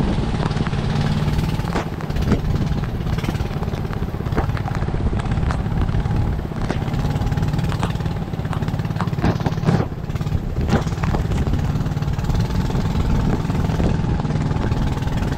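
Small boat engine running steadily, with a few sharp clicks about ten seconds in.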